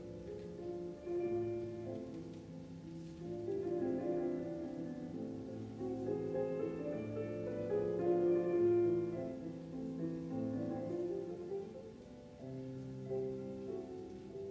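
Slow classical piano accompaniment for a ballet barre exercise, long held notes and chords changing about once a second.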